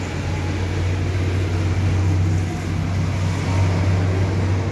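Toyota Kijang Innova's 2.0-litre four-cylinder petrol engine idling: a steady low hum.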